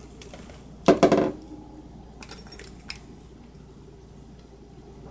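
Metal kitchenware clattering: one loud clatter of several quick knocks about a second in, then a few lighter clinks a second or so later.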